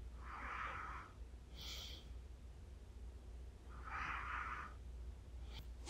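Slow, soft breathing of a dozing person, heard as two breaths about three and a half seconds apart, with a brief higher hiss between them. A faint low hum runs underneath.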